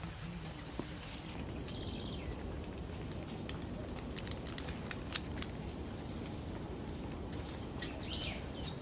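Outdoor ambience: a steady low rumble with scattered light taps, and short bird calls about two seconds in and again near the end.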